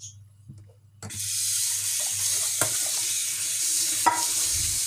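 Water pouring steadily into a kitchen sink, starting abruptly about a second in, with two light knocks: boiled pasta being drained.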